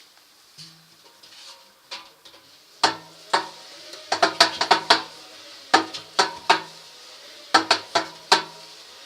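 Washing-machine drum turned by hand, giving groups of sharp metallic clacks and knocks with a brief ringing after each, in bursts about three seconds in, around five and six seconds, and near the end. The owner takes the noise for worn, defective drum bearings.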